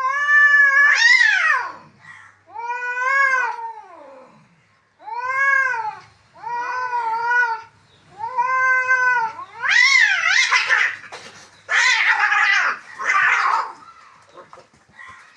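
Cats fighting: a series of long, wavering yowls that rise and fall in pitch, one after another. About ten seconds in, they give way to a few harsh, rasping screeches.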